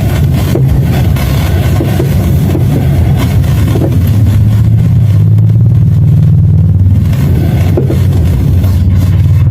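Loud, low droning hum with a fluttering pulse, coming over an FM radio: the unexplained sound that took over the station's frequency.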